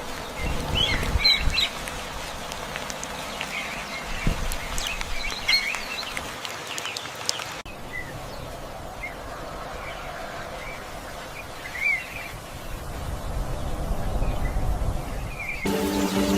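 Wild birds chirping and calling in short, scattered chirps over a steady outdoor background. Music comes in near the end.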